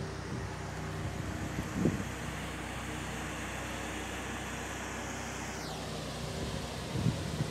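Steady low vehicle hum with road-traffic noise. There are two brief low bumps, about two seconds in and near the end, and a faint falling whine a little after halfway.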